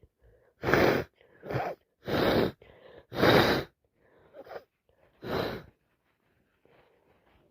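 A woman with a heavy, snotty head cold in a sneezing fit: a rapid run of sneezes, the four loudest about a second apart, with shorter sharp breaths between them. Faint breathing follows near the end.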